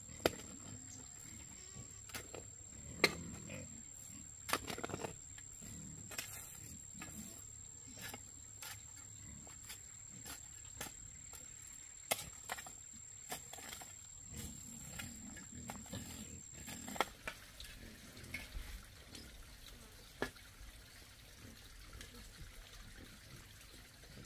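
A long-handled digging tool chopping and scraping into dry dirt, in irregular knocks about a second apart.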